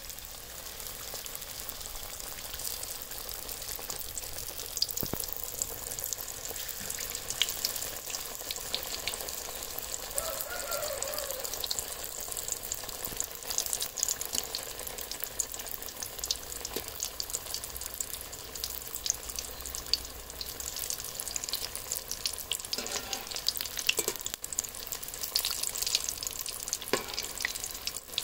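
Spring rolls deep-frying in hot oil in a steel kadai: a steady sizzle full of fine crackles and popping bubbles.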